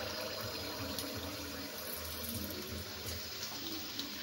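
Rice-flour and jaggery pitha batter sizzling steadily as it deep-fries in hot oil, with a few faint crackles.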